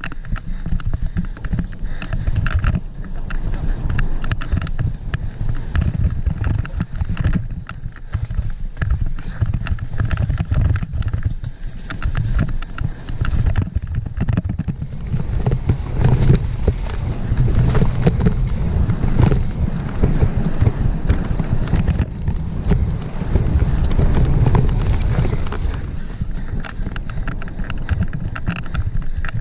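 Full-suspension mountain bike ridden fast down a rough dirt trail: a steady low rumble of wind and tyres, with the bike rattling and knocking over the bumps.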